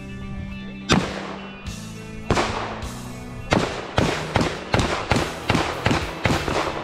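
Background music with sharp, loud hits. A couple come in the first half, then they settle into a fast, steady beat about every 0.4 seconds.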